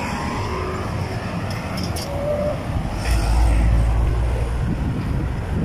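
Steady low rumble of road traffic and wind noise heard from a moving bicycle, swelling louder for about a second and a half around three seconds in.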